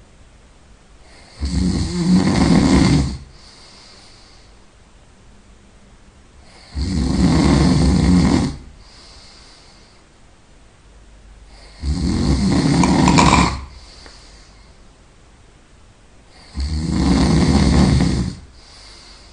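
A person snoring really loud: four long snores about five seconds apart, each under two seconds, with a softer breathy exhale between them.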